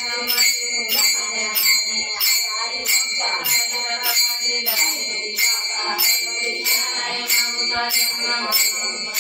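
Devotional bhajan singing accompanied by small metal hand cymbals struck in a steady beat about twice a second, their ringing carrying between strokes.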